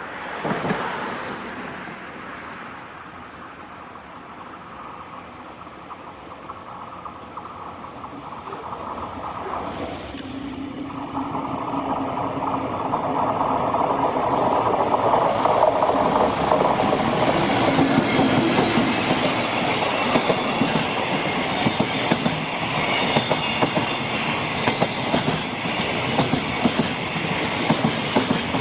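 JR Freight train approaching and passing, its noise building from about ten seconds in. It settles into a steady rumble with a regular clickety-clack of container flatcar wheels, many of the wagons running empty, over rail joints.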